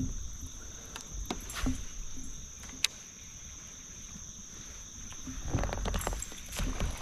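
Steady high-pitched chorus of crickets, with scattered sharp clicks. From about five seconds in come louder knocks and water noise of a kayak being paddled.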